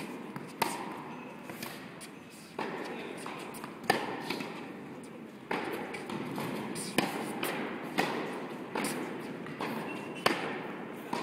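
Tennis balls being struck by rackets and bouncing on an indoor court during a rally: about nine sharp pops at uneven gaps of roughly a second, each ringing briefly in the echo of a large tennis hall.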